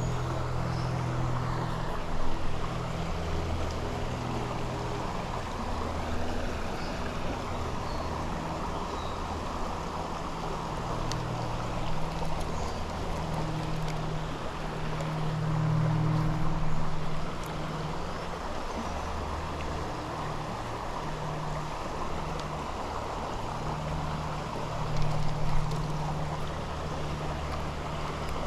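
Shallow creek water running steadily over rocks, a constant rushing, under a low uneven rumble that swells and fades.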